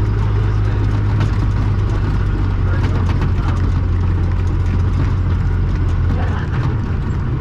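Pulling tractor's engine running steadily at low revs, heard from inside the cab, with a deep even hum that eases slightly near the end.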